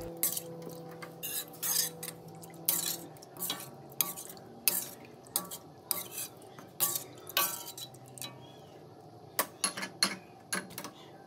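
Metal ladle stirring coconut-milk curry in a steel wok, knocking and scraping against the pan in irregular clinks, roughly two a second.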